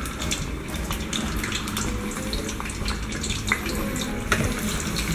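Battered fish fillet pieces deep-frying in very hot oil in a pot: a steady sizzle with scattered crackles and pops.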